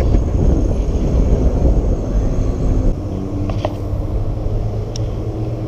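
Steady low rumble of engine traffic, with a faint steady hum joining about three seconds in.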